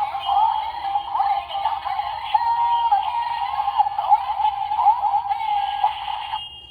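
Kamen Rider Revice toy playing the Gaim Vistamp's electronic transformation sound: music with a synthesized singing voice, tinny through the toy's small speaker. It cuts off about six seconds in.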